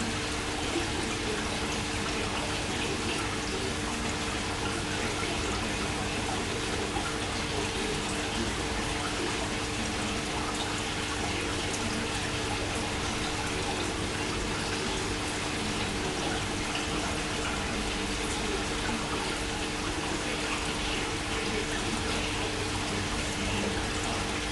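Aquarium water running steadily, with the constant hum of the tank's pump.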